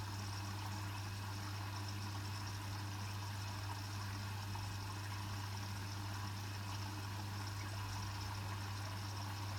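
Hotpoint WMFUG 942 washing machine on its second rinse: water flowing through the machine with a steady low hum.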